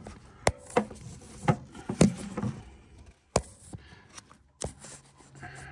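Irregular sharp clicks and knocks, about half a dozen, from a phone being handled and bumping against parts as it is worked down into a car's engine bay.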